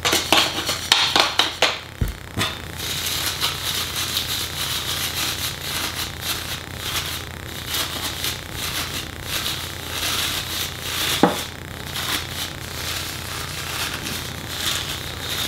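Metal-mesh pot scrubbers crinkling and scraping as they are pushed down inside a PVC pipe and fed in by hand. There are a few sharp taps and a thump in the first couple of seconds, then a steady irregular rustle.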